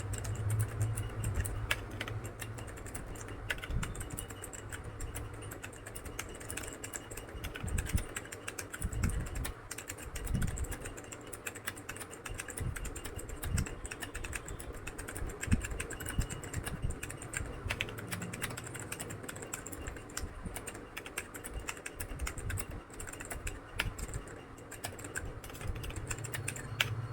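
Fast, continuous typing on a Lenovo laptop keyboard, a rapid patter of key clicks at about 70 words per minute.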